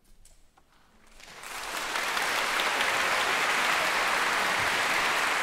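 Audience applauding at the end of an orchestral piece: it starts from near quiet about a second in, swells within a second to full applause and stays steady.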